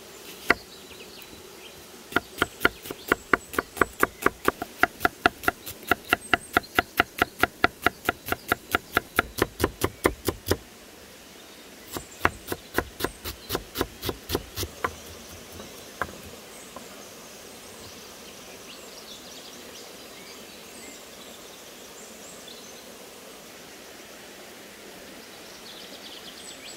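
Kitchen knife chopping onion on a wooden log-slice board: a fast run of knocks about four or five a second, then after a short break a second, shorter run, and a last single knock before it stops.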